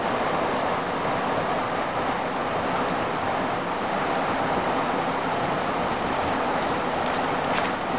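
Steady rushing of fast river water running over rocks and through foamy riffles.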